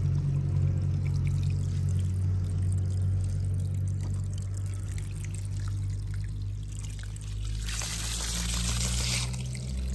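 A jet of water sprays and splashes onto a small toy car in the grass for about a second and a half near the end, over a steady low hum.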